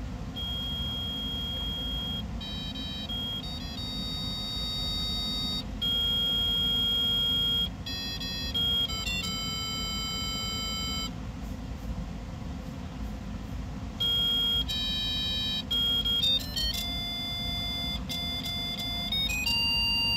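A 3D-printed electromagnetic coil actuator (silver-ink coil printed on copper-filled PLA) driving a cone as a small speaker, playing a tune of held electronic tones that step from note to note, with a break of a few seconds in the middle. A steady low hum runs underneath.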